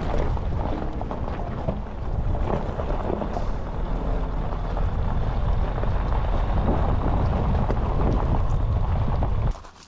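Car driving on a loose gravel road: a heavy, steady rumble of tyres over stones, with wind noise on the microphone. It cuts off abruptly shortly before the end.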